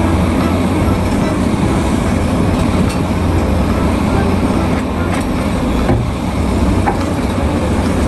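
Large Caterpillar hydraulic excavator's diesel engine running steadily under load as it digs and loads rock, with a few knocks of rock against steel.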